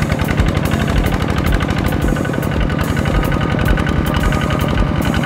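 Kubota ZT155 single-cylinder diesel on a two-wheel tractor running hard with a rapid, even chugging, under load as it hauls a trailer of rice sacks through mud.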